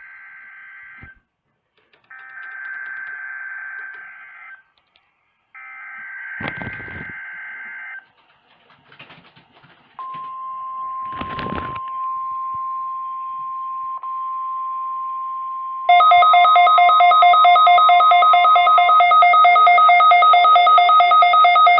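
Emergency Alert System test tones on NOAA Weather Radio: the end of one burst of SAME header data and two more, a harsh digital buzzing, each about two and a half seconds long with a second-long gap between. About 10 seconds in, the steady 1050 Hz weather radio warning alarm tone starts, and about 16 seconds in a much louder rapidly pulsing alarm with several pitches comes in over it.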